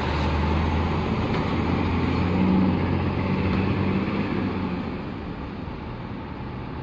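Intercity bus's diesel engine running as the bus pulls away and drives off, a steady low hum that fades from about halfway through as it moves into the distance.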